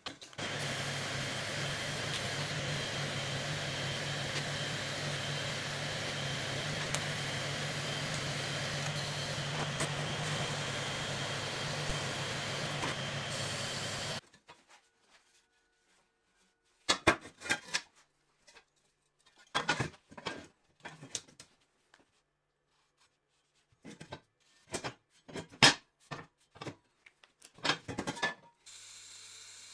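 A TIG welding arc hisses steadily over a low hum for about fourteen seconds, then cuts off abruptly. After it, scattered clinks and taps of steel tube being handled on a steel welding table.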